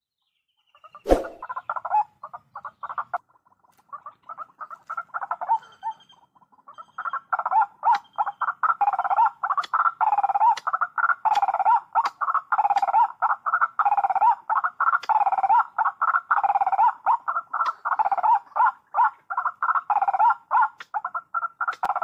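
White-breasted waterhen calls: repeated 'ruak-ruak' notes, scattered at first, then a dense, unbroken rhythmic run from about seven seconds in. A single sharp click about a second in.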